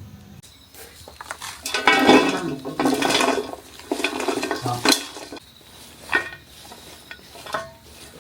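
Dishes and utensils clattering and clinking together, a dense run of knocks from about two to five seconds in, then two or three single clinks.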